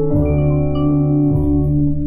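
1950s jazz tentet recording: sustained ensemble chords over low bass notes that change about every second, with ringing mallet notes from a vibraphone.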